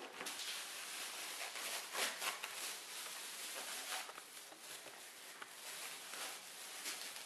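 Thin plastic packaging rustling and crinkling as hands pull it out of a cardboard box, with a few sharper crackles, the loudest about two seconds in.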